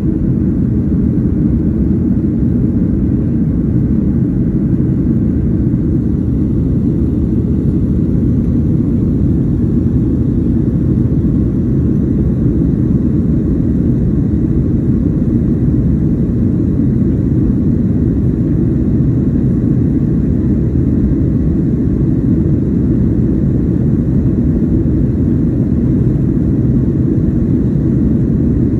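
Steady low rumble of a jet airliner in flight, its engines and airflow heard from inside the cabin.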